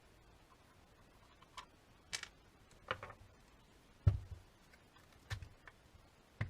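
Irregular clicks and light knocks of small hard parts being handled during work on the tool, about six in all, with a heavier thump about four seconds in.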